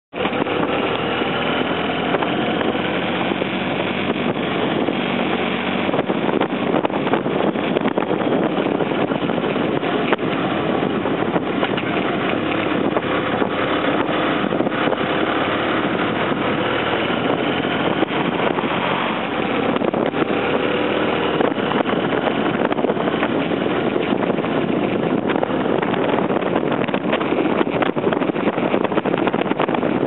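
BMW F800ST parallel-twin motorcycle engine running at road speed, its note drifting up and down gently with the throttle, under steady wind and road noise on the bike-mounted microphone.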